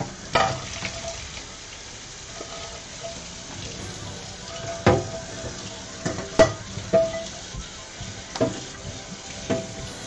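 Kitchen tap running onto a frying pan as it is rinsed and rubbed by hand in a stainless steel sink, a steady splashing hiss. Several sharp knocks and clinks break in as the pan is handled, a few of them ringing briefly.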